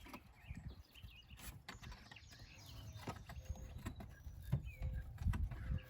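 Faint scattered clicks, taps and knocks of hands working the oil catch can, its hoses and plastic clip into place in the engine bay.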